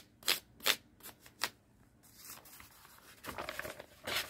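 Paper being handled: a few short, sharp rustles in the first second and a half, then a longer rustle near the end as a large sheet of paper is lifted up.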